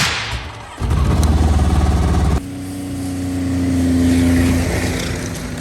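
Snowmobile engines running in short clips that cut abruptly. In the last clip one sled holds a steady engine note that swells louder and then fades away, as if passing by.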